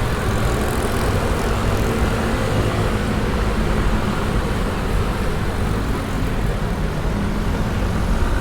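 Steady, dense city street traffic: a continuous mix of vehicle engines and tyre noise with no single event standing out.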